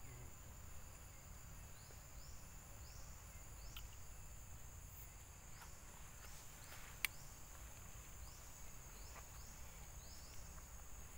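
Forest insects: a faint steady high buzz with short upward-sweeping chirps every second or so. A single sharp click about seven seconds in.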